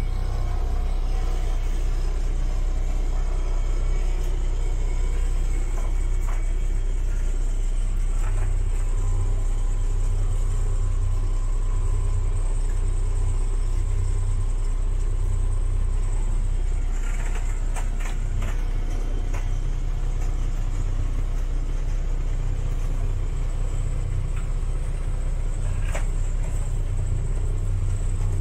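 Saga 27AC motor boat's inboard diesel engine running at a steady speed underway, a continuous low rumble.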